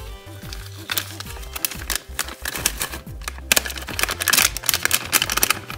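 Background music with a steady bass line, over rapid rustling and clicking as a seasoning packet is shaken out over a pot of rice and corn. The clicking is densest in the second half.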